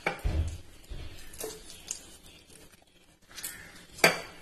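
Half a lemon squeezed by hand over a steel mixer jar of green chillies and mint leaves: soft squishing and rustling, with a sharp click about four seconds in.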